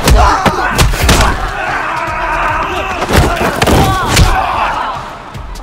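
Hand-to-hand fight sound effects: a quick run of hard punch and body-hit impacts in the first second, and another cluster about three to four seconds in, mixed with the fighters' grunts and shouts. The sound tails off near the end.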